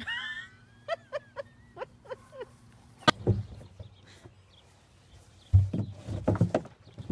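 A small animal's short high calls with bending pitch, about half a dozen in quick succession, then a sharp knock about three seconds in and a cluster of louder thumps near the end.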